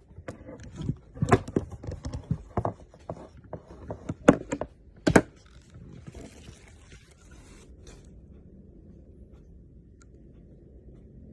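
Hard plastic action figure and its packaging being handled: a run of sharp clicks, knocks and scrapes over the first five seconds, then a rustle until about eight seconds in, then only a faint steady hum.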